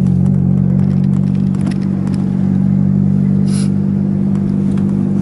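A vehicle engine running at a steady speed: a constant low hum, with a short hiss about three and a half seconds in.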